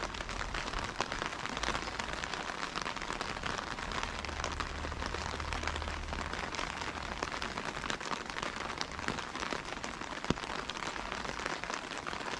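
Steady rain falling, an even hiss dotted with many small drop ticks. A faint low rumble sits underneath for a few seconds midway.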